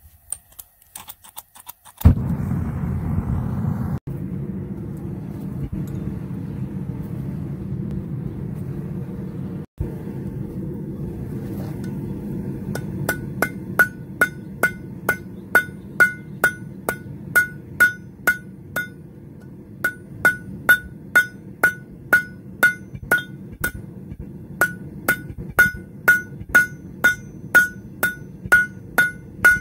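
A hot iron rod being forged with a hand hammer on a steel bar anvil: from about halfway, steady blows at roughly two a second, each with a bright metallic ring, with a couple of short pauses. Before the hammering starts, and more faintly under it, a steady low roar runs, from the forge.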